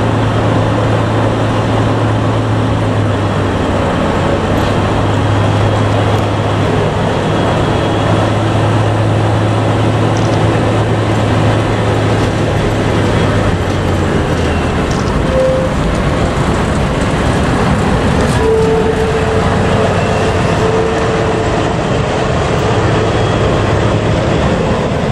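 Diesel shunting locomotive DSA273 (NZR DSA class) passing slowly with its engine running in a steady low drone, which fades about halfway through as its passenger carriages roll past. A faint thin whine comes twice in the second half.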